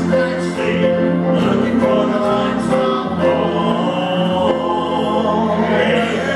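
A man and a woman singing a gospel song as a duet into microphones, holding long notes over instrumental accompaniment.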